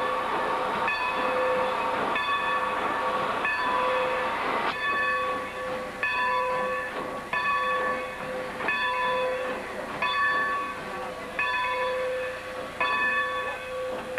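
Steam train at close quarters: a hiss of steam under a ringing tone that breaks off and returns about every second and a half.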